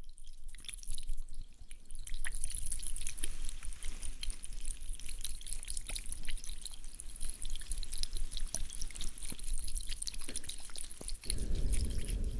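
Close-miked ASMR trigger sounds: a dense, uneven run of small crackling clicks, with a low rumble joining about eleven seconds in.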